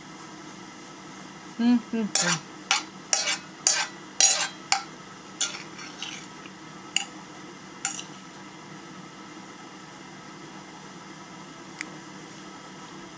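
Cutlery clinking and scraping against a plate during eating: a quick run of about a dozen sharp clinks in the first half, then only faint room background.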